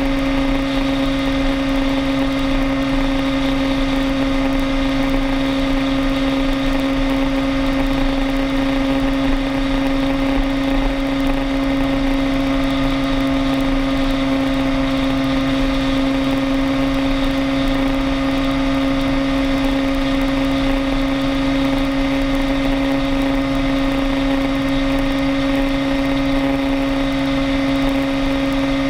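A vehicle's engine and drivetrain hum at a steady pitch while it cruises at highway speed, over a constant rush of road and wind noise.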